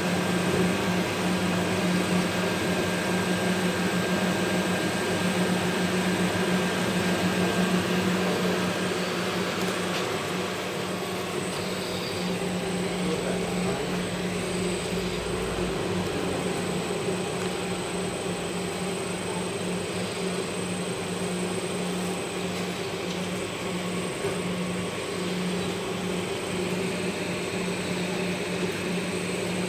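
GOGOPRESS rotary sublimation heat press running: a steady mechanical drone with a constant low hum. It gets a little quieter about a third of the way in.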